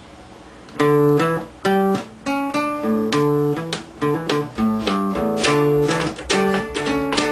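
Two acoustic guitars playing together. After a faint start, chords and picked notes come in about a second in and carry on in a steady rhythm with short breaks.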